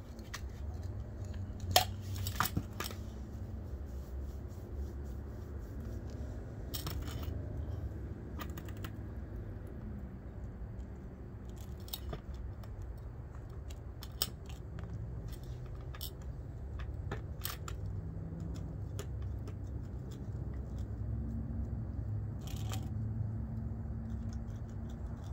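Light metallic clicks and knocks from the homemade core drill's steel pipe bit and angle grinder being handled while the motor is off, over a low outdoor rumble. The sharpest click comes about two seconds in.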